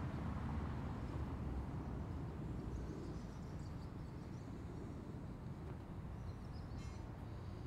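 Steady low outdoor background rumble, with faint high bird chirps now and then.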